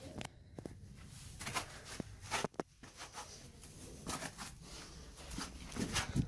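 Irregular scuffs, scrapes and knocks of someone scrambling up sandstone: shoes scraping on the rock and a handheld phone rubbing and bumping. The loudest knocks come about two and a half seconds in and near the end.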